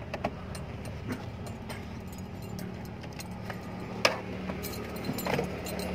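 Keys on a carabiner key ring jingling and clicking against the ignition and steering column as hands work beside them, with scattered small clicks and a sharper click about four seconds in. A steady low hum runs underneath.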